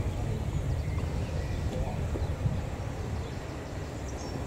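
Outdoor background: a steady low rumble with a few short bird chirps near the end.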